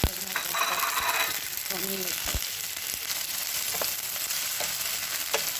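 Onion frying in hot oil in a pot: steady sizzling, with a few sharp clicks.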